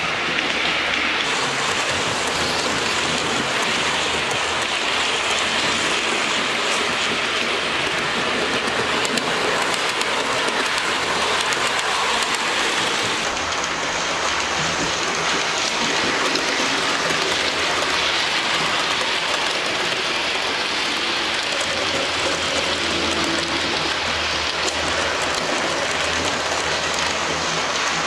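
Hornby model trains running on a small layout: a steady whirring, rattling hiss of the electric motors and of the wheels running on the rails, with a faint low hum. The sound changes slightly about halfway through.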